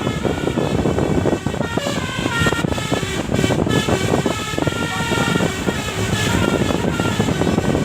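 Bus telolet horn, a multi-tone musical horn, playing quick melodic figures of stepping tones repeated several times, starting about two seconds in, over a steady engine and road rumble.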